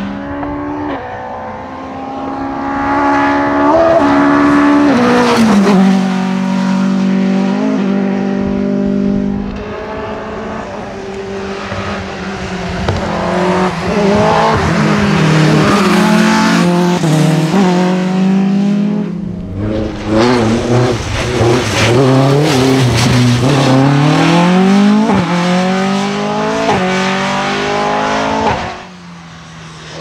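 Rally cars driven hard on a wet tarmac stage, their engines revving up and down with gear changes and lifts for the corners, over a hiss of tyres on the wet road. Later on an engine climbs steeply through the revs several times as a car accelerates away.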